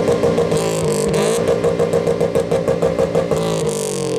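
2002 Subaru WRX's turbocharged flat-four revved hard through its exhaust. It is held high with a rapid stutter, about ten cuts a second, in the middle, and the revs fall away near the end.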